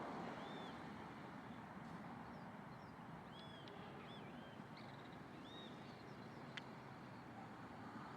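Faint songbird singing: a run of short, arched whistled notes over a steady background hiss, followed by a single sharp click near the end.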